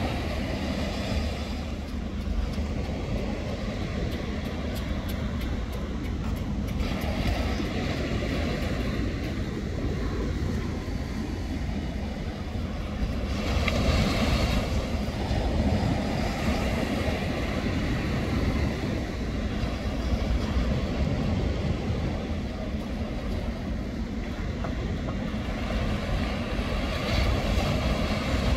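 Small shore waves breaking and washing up the sand over a steady low rumble, the wash swelling twice, about halfway through and again near the end.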